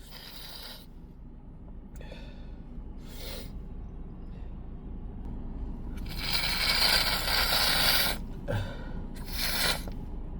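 A person's noisy sniffs and breaths through a congested nose after wet sneezes. There are several short hissing bursts, with a longer, louder one about six seconds in that lasts about two seconds.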